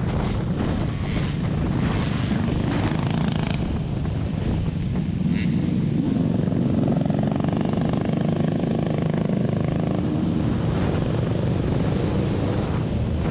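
Off-road vehicle driving over rough ground: steady engine and tyre rumble with wind buffeting the microphone and scattered knocks from the terrain.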